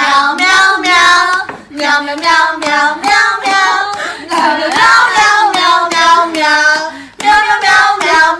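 A high-pitched voice singing in short, melodic phrases that glide up and down.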